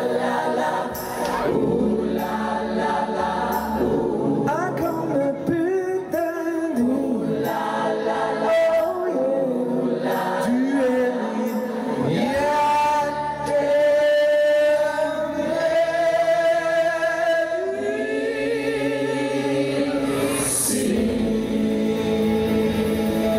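Mixed choir of men and women singing with a live band, holding long notes in the second half.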